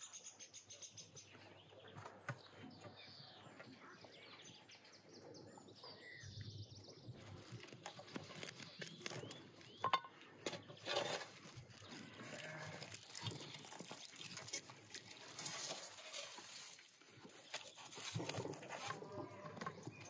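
Sheep bleating now and then in the background, with clicks, scraping and crackling as a knife carves a roast turkey on a metal pan.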